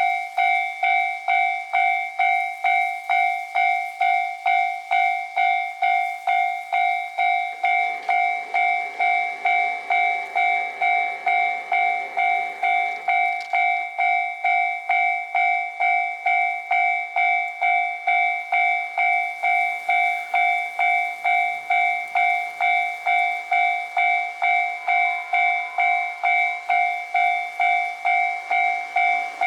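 Japanese railway level-crossing warning bell ringing steadily, a little over two strikes a second, signalling an approaching train. A faint low rumble comes and goes in the middle.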